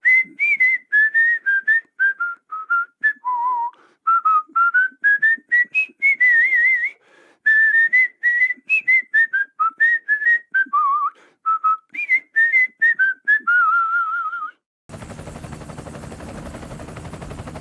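A whistled tune: one clear melody of many short notes and a few held notes with vibrato. It stops near the end, and a steady rushing noise starts in its place.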